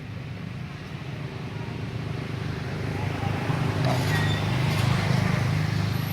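A motor vehicle's engine running as it passes, a low steady hum growing louder and loudest about five seconds in.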